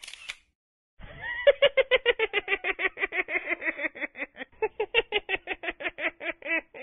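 Rapid cackling in quick, even pitched pulses, about eight a second, starting about a second in and going on for nearly six seconds.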